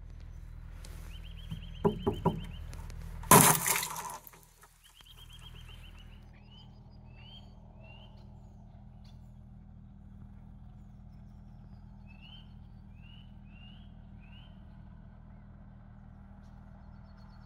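Birds chirping and trilling over a steady low mechanical hum, with a single loud crash a little over three seconds in.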